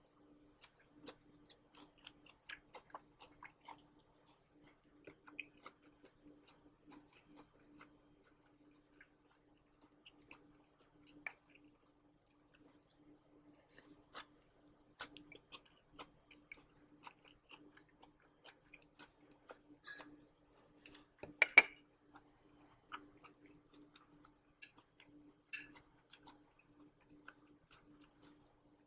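Close-miked chewing of crunchy dry fried green beans: soft, irregular crunches and mouth clicks picked up by a shirt-clipped microphone, with one louder sharp knock about three-quarters of the way through.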